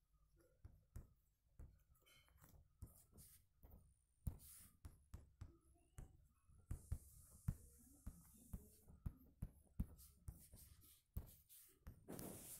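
Faint scattered taps and clicks on a phone's touchscreen as it is written on, with a short hiss about seven seconds in.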